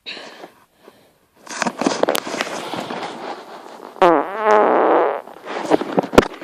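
Fart noises: a long rattling rasp starting about a second and a half in, then a louder pitched blast with a wavering tone about four seconds in. A sharp click comes near the end.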